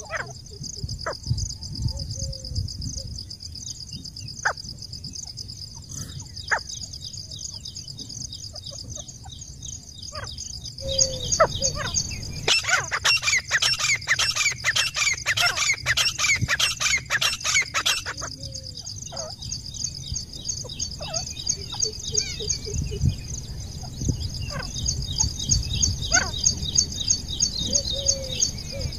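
Grey francolin calling: scattered short calls, then a loud, rapid run of repeated calls from about eleven to eighteen seconds in, over a steady high-pitched buzz.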